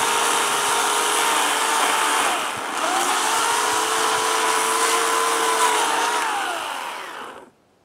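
Corded electric chainsaw cutting through a pecan log. Its motor whine dips in pitch under load a little over two seconds in, picks back up, then winds down and stops near the end as the cut goes through.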